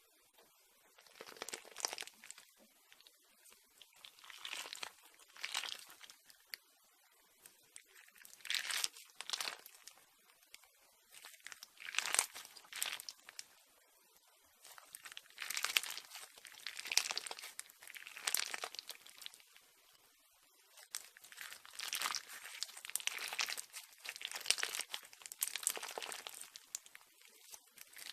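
Slime being squeezed and pressed by hand, giving repeated bursts of crackling noise a second or two long with short pauses between.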